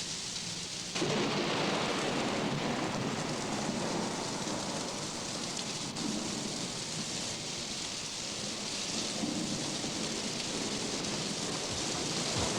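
Thunderstorm sound effect: steady rain, with a loud rumble of thunder breaking in suddenly about a second in and rolling on.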